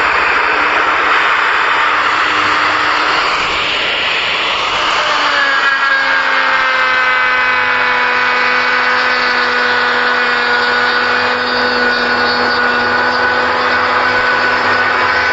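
Electric power tool working wood. A loud rushing grind for about five seconds, then a steady motor whine whose pitch sinks slightly.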